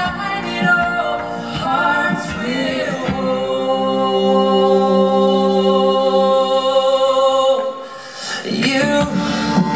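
Live band performing, with several male and female voices singing in harmony. About three seconds in they hold one long chord for some four seconds, then drop away briefly before the singing and playing pick up again near the end.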